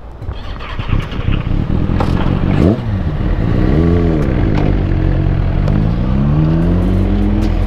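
Motorcycle engine pulling away under throttle: a low rumble, then the pitch climbs and drops back, as in a gear change, about four seconds in, and climbs again through the last couple of seconds.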